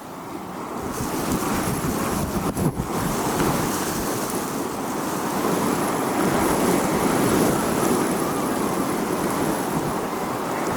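Howling storm wind blowing hard and steadily, swelling up over the first second or two and then holding strong.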